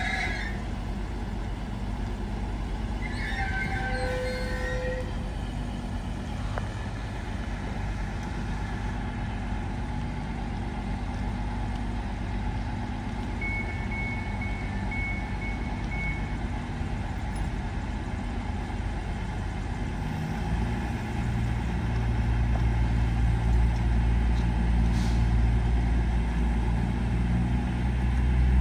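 Diesel multiple-unit train at a station platform. A brief high squeal comes a few seconds in, then a low diesel engine rumble grows louder over the last third.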